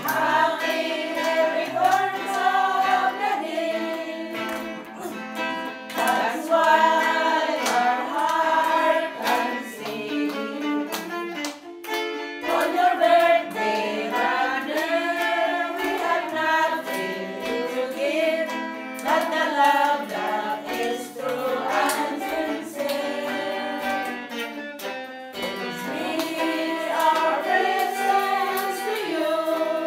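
Voices singing a song to guitar accompaniment.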